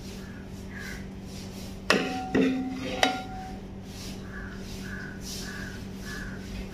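Steel serving ladle clinking three times against the cooking pot, each knock ringing briefly, as curry is ladled out, over a steady low hum.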